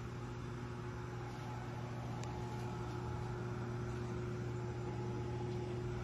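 52-inch Hunter Westminster ceiling fan running steadily on high, its motor giving a constant hum with fainter higher steady tones. The fan has a bad capacitor.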